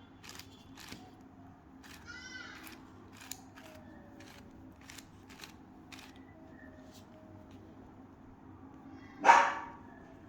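Plastic 4x4x4 Rubik's cube (Rubik's Revenge) being turned by hand: a scattering of short clicks and clacks from the layers. There is a brief squeak about two seconds in. One loud, short pitched sound near the end is the loudest thing heard.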